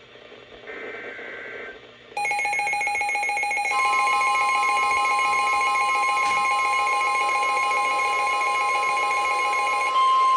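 NOAA Weather Radio alerting sequence: a short screeching SAME digital header burst about a second in, then a buzzy many-toned alarm starting about two seconds in. About four seconds in, the steady 1050 Hz Weather Radio warning tone joins it and carries on alone, louder, after the buzzy alarm stops near the end. The sequence announces a new warning about to be read.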